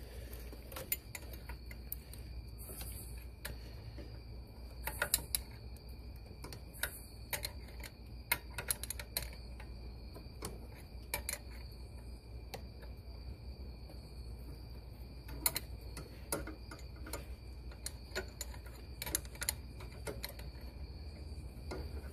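Irregular small metallic clicks and taps of a flare-nut wrench working the brake line fitting nuts on an ABS hydraulic unit, over a low hum and a faint steady high-pitched whine.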